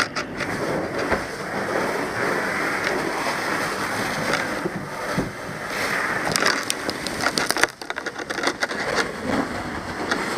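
Steady rushing and spattering of water, like a fire hose stream spraying into a burning building, with scattered sharp crackles and clatters over it.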